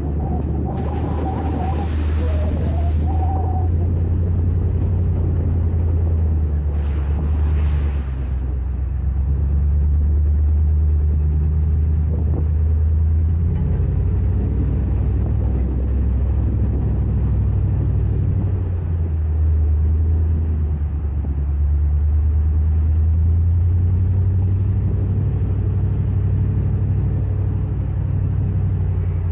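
A Raptor's engine running steadily at low speed as it drives along a dirt trail, a continuous low drone that rises and falls slightly in level. Two brief hissing noises come through about a second in and again around seven seconds in.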